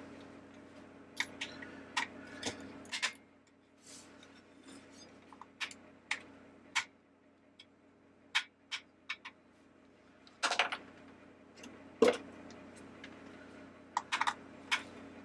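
Scattered light clicks and taps of a small screwdriver and fingers on the hard plastic base of a porcelain teacup figurine as its Phillips screws are worked out, over a faint steady hum.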